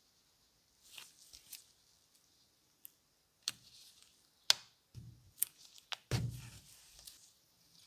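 Close-up handling sounds of hand-stitching a leather grip onto a brass barrel: a needle and thread pulled through the leather, with scattered sharp clicks and scratchy thread pulls. A duller rustling thump of gloved fingers working the leather comes about six seconds in.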